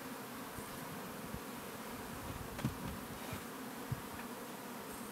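Honeybee buzzing on willow catkins, a steady close hum, which the beekeeper describes as bees incapacitated on contact with the flowers. A few soft knocks about two and a half and four seconds in.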